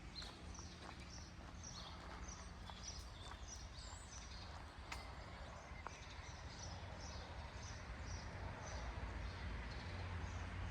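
A small bird chirping over and over, short high chirps about twice a second, over a low steady outdoor rumble.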